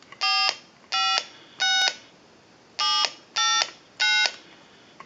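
DTMF touch tones from a Harris TS22 lineman's butt set as numbers are dialed on its keypad: six short, steady two-tone beeps in two groups of three, with a pause of about a second between the groups.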